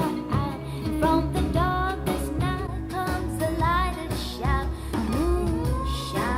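Music: a song with a singing voice over an instrumental backing.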